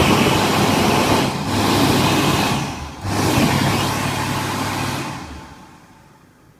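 Dyson Airblade hand dryer blowing: a loud rush of air over a steady motor hum, cutting out briefly twice as the hands move, then winding down about five seconds in.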